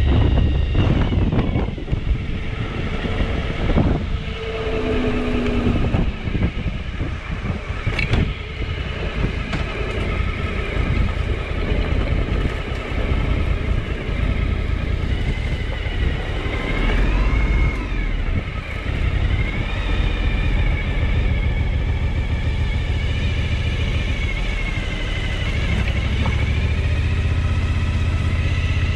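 Suzuki V-Strom 1000's V-twin engine running as the motorcycle is ridden, its pitch rising and falling with the throttle, over a steady low rumble. A sharp knock about eight seconds in.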